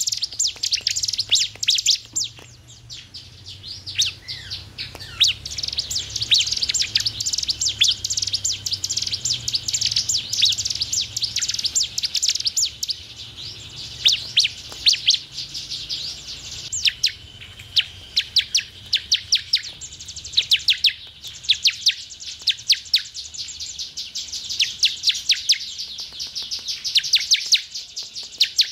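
A ciblek (bar-winged prinia) singing: long, fast runs of sharp, high chirps, several a second, going on almost without a break.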